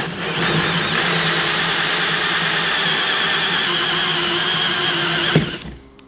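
Electric drill spinning a hole saw through a black plastic box lid: a steady, loud motor whine with the grinding of the teeth in the plastic. It stops abruptly about five and a half seconds in, once the saw is through.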